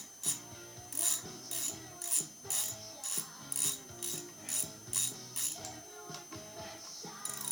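Ratchet wrench clicking in regular strokes, about two clicks a second, as fasteners on a Briggs & Stratton small engine are worked loose.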